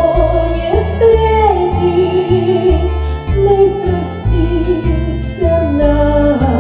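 Music: a woman singing a slow Russian romance over a backing track with steady bass notes and a violin-like melody.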